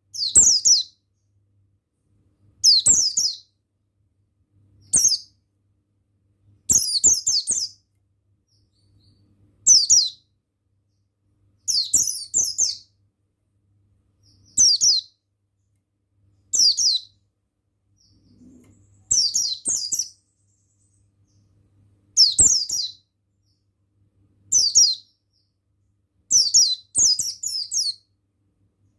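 White-eye (pleci buxtoni) singing: about a dozen short, high, twittering phrases, each made of quick falling notes, repeated roughly every two seconds.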